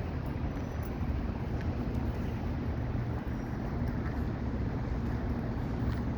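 Steady low rumble of wind and vehicle noise with a faint hum.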